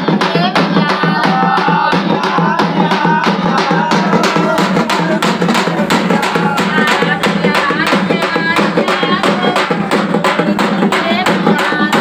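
Several double-headed drums beaten with sticks in a fast, steady rhythm of about five strokes a second, with a wavering melody sounding above them.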